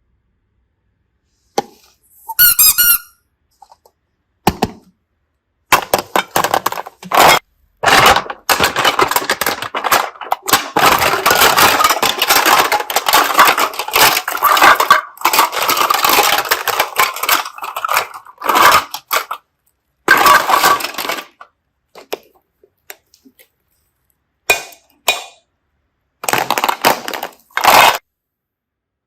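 Slime being squeezed and pressed by hand, crackling and popping in stop-start bursts, with a long dense stretch of crackling in the middle and a few squeaks.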